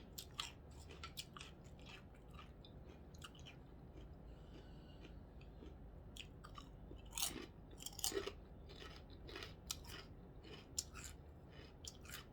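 Close-up chewing of a corned beef sandwich: soft, wet mouth clicks and smacks coming irregularly, with a louder cluster a little past halfway.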